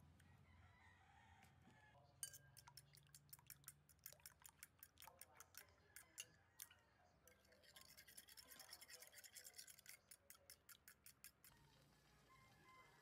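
Fork beating eggs and milk in a ceramic bowl: faint, quick clicking of the tines against the bowl, about three to four clicks a second. The clicking grows denser and faster for a couple of seconds past the middle, then stops about a second before the end.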